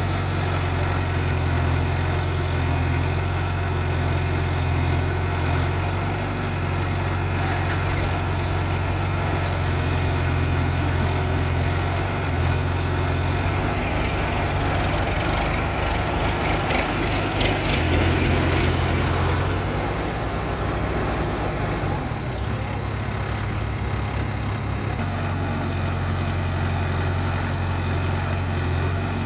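Heavy diesel engine of a backhoe loader running steadily with a low hum. About halfway through it works harder for several seconds, then settles back.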